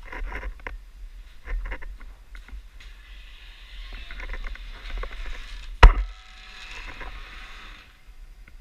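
Clattering and rustling handling noise from players moving through an indoor airsoft game, with one sharp, loud crack about six seconds in.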